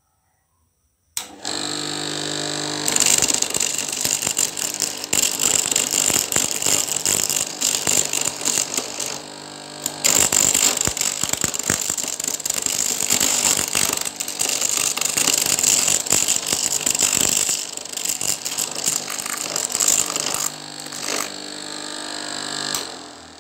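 Homemade corn sheller driven by a used Shimizu water-pump electric motor switches on and runs with a steady hum. Ears of corn pressed against its spinning roller give a dense rattle and clatter of kernels being stripped off and scattering, with a brief let-up about nine seconds in. Near the end the clatter stops, the motor hums on alone, and then it dies away.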